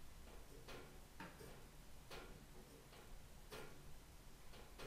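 Near silence with faint, short ticks coming about once a second, unevenly spaced.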